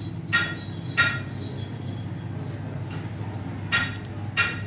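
Short ringing clinks, four of them, from the rifle scope's lens assembly being handled and tapped, over a low steady hum.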